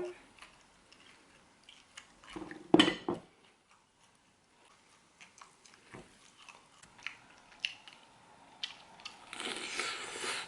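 Chewing and crunching on crispy air-fried chicken wings: scattered small crunches, a louder one about three seconds in, and a longer noisy stretch near the end.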